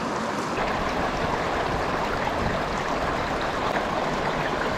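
Small mountain stream running steadily.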